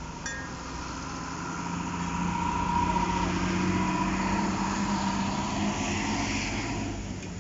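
A motor vehicle's engine running with a steady drone, growing louder about two seconds in and easing off near the end.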